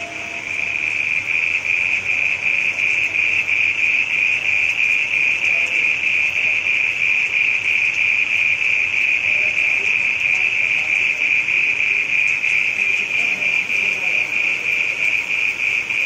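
A small frog calling: a steady, high-pitched trill of very rapid pulses that grows louder about half a second in and carries on without a break.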